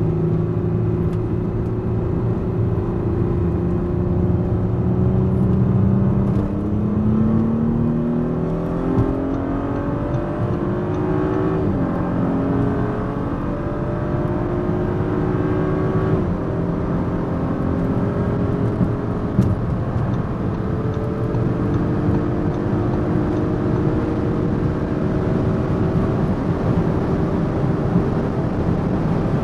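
Audi SQ5's 3.0 TFSI V6 pulling hard at high autobahn speed, its engine note climbing slowly in pitch. About twelve seconds in the pitch drops at an upshift, then it climbs slowly again, over steady road and wind noise.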